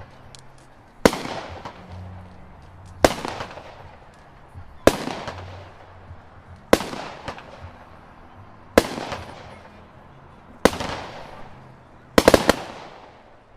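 Beach Party multi-shot aerial firework firing about every two seconds. Each shot is a sharp bang followed by a fading crackle. A quick run of several bangs comes near the end.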